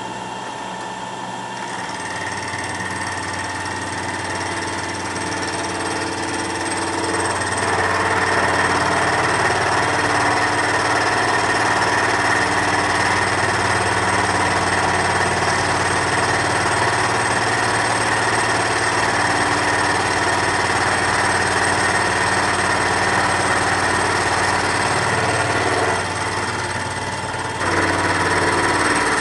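Vertical milling machine with an end mill cutting along the side of a metal workpiece clamped in a vise, a steady machining noise. It grows louder over the first several seconds as the cut takes hold, then holds steady, dips briefly near the end and comes back.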